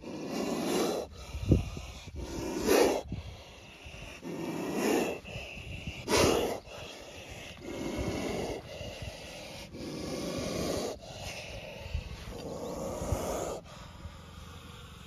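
Indian spectacled cobra hissing inside a cloth bag: a series of loud, breathy hisses every one to two seconds. The hissing is a sign of an agitated, defensive snake that has not calmed down since capture. A single sharp thump comes about a second and a half in.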